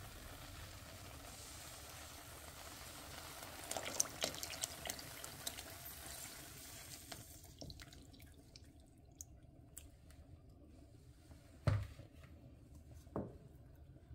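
Milk mixture poured from a blender jug into a hot copper pan of cooked rice: a steady liquid pour for the first half, fading, followed by two short knocks near the end.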